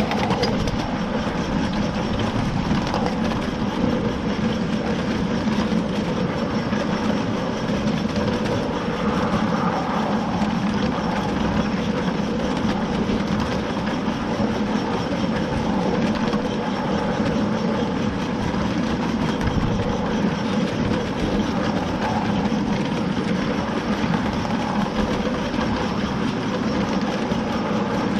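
Steady rolling noise of a 7½-inch gauge miniature passenger train's wheels on the track, heard from on board a moving car.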